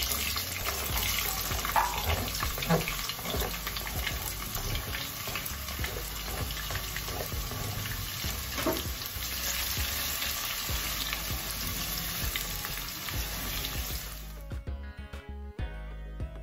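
Sliced onions sizzling in hot palm oil in a pot, stirred with a silicone spatula, with a few sharp scrapes and knocks of the spatula against the board and pot. Near the end the sizzle drops away and background music takes over.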